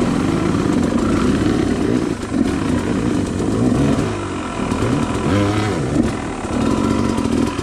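Dirt bike engines running, the revs rising and falling as the throttle is worked, with a clear rise and fall a little past halfway through.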